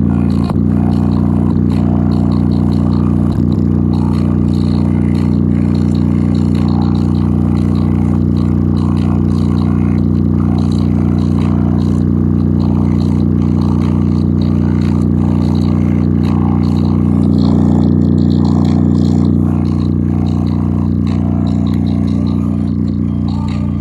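JBL Charge 4 portable Bluetooth speaker playing music at full volume in its bass-heavy low-frequency mode, a deep steady bass drone dominating with the rest of the song faint above it. The bass swells about three quarters of the way through and starts to fade near the end.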